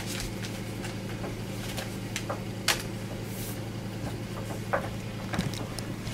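Scattered light clicks and knocks from cans and a spice packet being handled, over a steady low hum.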